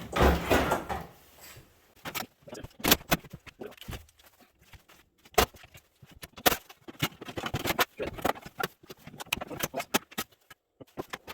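Irregular clicks, knocks and clinks of hand tools and metal parts as an old microwave is taken apart for scrap, with a louder burst of handling noise in the first second.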